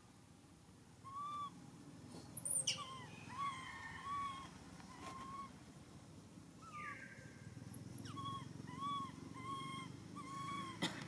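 Infant macaque giving a long string of short, arched coo calls, a plaintive whimpering with pauses between runs. Two sharp squeals drop steeply in pitch, about two and a half seconds in and again near eight seconds, and are the loudest moments.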